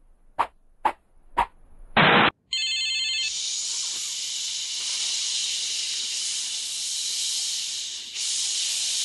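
A few short sharp sounds, a louder one at about two seconds and a brief ringing tone, then from about three seconds in a steady hiss from Sleestak lizard-men, dipping briefly near the end.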